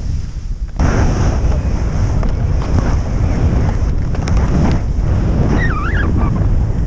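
Wind buffeting an action camera's microphone during a fast ski descent, with the hiss of skis running through deep powder snow. The rush drops briefly at the start and comes back loud under a second in. A short wavering high tone sounds about six seconds in.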